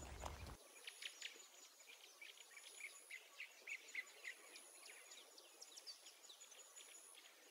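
Quiet woodland ambience: many faint, quick chirps of small birds, busiest in the middle, over a thin, high, steady insect whine. A low rumble cuts off about half a second in.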